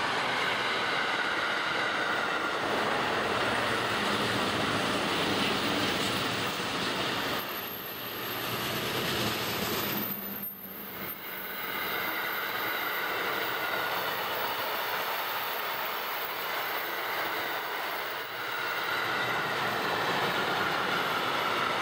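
A rail construction train of heavy track-maintenance machines and wagons rolling past: a steady rumble and rattle of wheels on rail, with a steady high tone over it. The noise dips briefly about ten seconds in.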